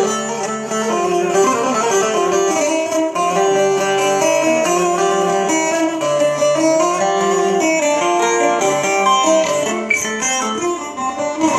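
Electro-acoustic bağlama playing a melodic phrase of plucked notes, with its pitch transposed so that the tonic (karar) sounds as D (Re).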